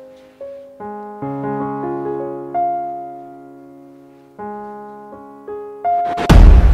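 Soft background piano music of slow, separate notes and chords that each fade away. Near the end a sudden loud, deep boom hits and rings on.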